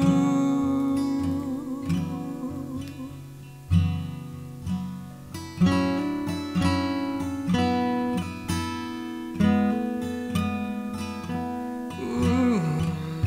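Acoustic guitar playing an instrumental passage: a chord rings out at first, then chords are picked or strummed about once a second, each left to ring and fade.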